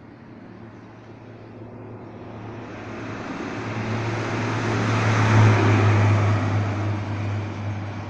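A motor vehicle passing on the street: its engine and road noise grow louder for about five seconds, peak a little past the middle, then fade away.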